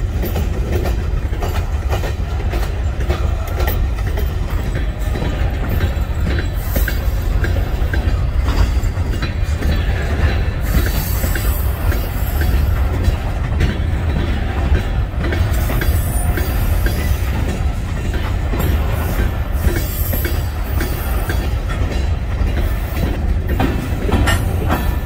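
Covered hopper cars of a freight train rolling past at close range: a steady low rumble of steel wheels on rail with a continuous run of clicks as the wheels pass over rail joints.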